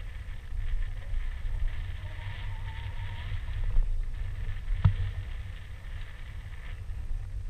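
Wind buffeting a GoPro's microphone, a steady low rumble, with one sharp knock about five seconds in.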